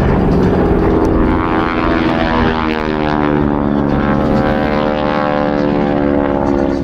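Several SNJ-2 warbirds' Pratt & Whitney R-1340 radial engines and propellers running loudly in flight, their overlapping engine notes sliding slowly lower in pitch as the aircraft pass.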